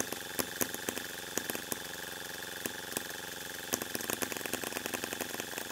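Toyan LF200 miniature two-cylinder four-stroke engine being turned over by its electric starter: a steady mechanical whine with irregular sharp pops, without the engine catching. This is the gasoline-conversion engine that the builder cannot get to run, which he suspects is down to the fuel premix or carburettor tuning at altitude.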